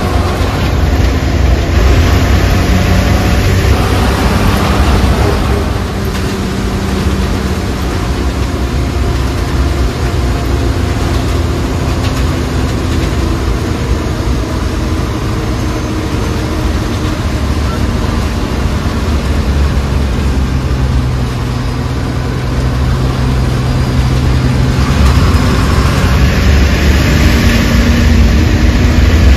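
A vehicle's engine running under load with steady road noise, heard from inside the vehicle as it climbs a winding hill road. The engine note shifts pitch several times and grows louder near the end.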